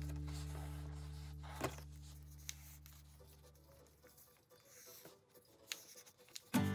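A held music chord fades away over the first few seconds. Then come faint rustling, scraping and a few light taps of folded paper being handled. Music starts again right at the end.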